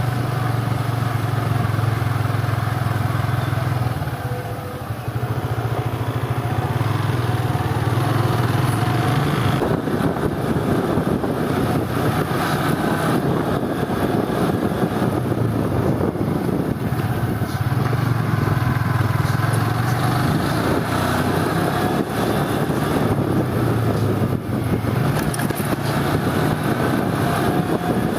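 Motorcycle engine running steadily with rushing wind and road noise, with a short dip in level about four seconds in.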